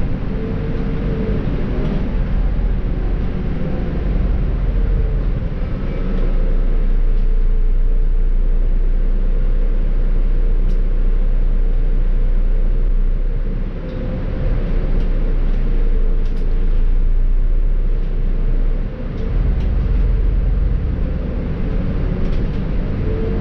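Volvo B7R bus under way: its seven-litre six-cylinder diesel and ZF EcoLife automatic gearbox make a steady low rumble with road noise and a few light rattles. The sound dips briefly twice, about halfway through and again a few seconds later.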